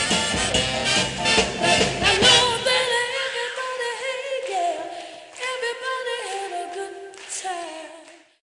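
Early-1960s pop record coming to its end. The full band plays at first, then drops out about three seconds in. Voices sing on alone with sliding, wavering notes, then fade out just before the end.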